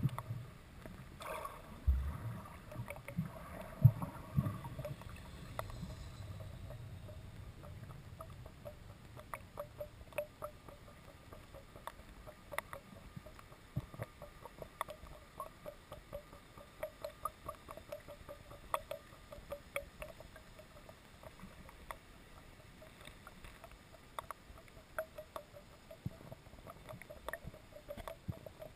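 Underwater sound: many irregular clicks and ticks over a faint pulsing hum, with a few low thumps in the first few seconds.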